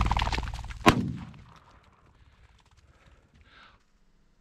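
A sudden loud burst of noise, then a single shotgun shot about a second in, its report echoing away over the next half second.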